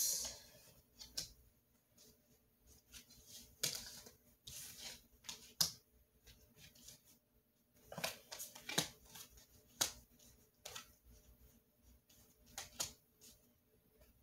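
Tarot cards being handled and laid out on a table: scattered short clicks and soft rustles every second or so, with a few bunched together.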